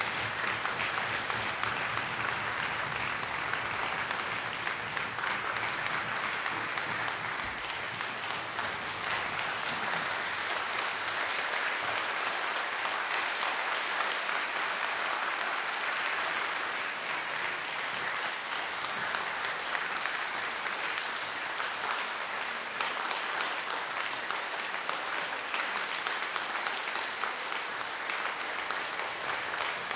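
Concert hall audience applauding, a dense, steady clapping, with orchestra members on stage joining in.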